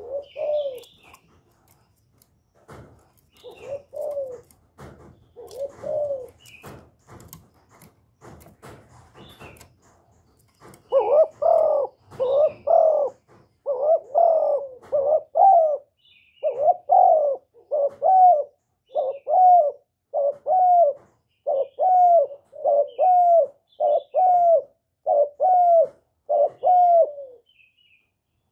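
Caged spotted dove cooing. At first there are a few soft coos among scattered clicks, then from about eleven seconds in comes a steady run of loud, repeated coo notes, about one a second.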